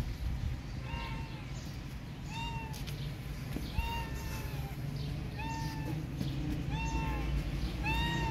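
A pregnant feral cat meowing repeatedly, about seven calls roughly a second and a half apart, each rising then falling in pitch, as it comes up asking for food.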